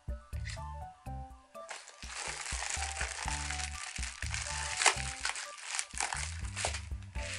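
Background music with a stepping bass line, over plastic packaging crinkling and rustling as it is handled, with one sharp snap about two-thirds of the way in.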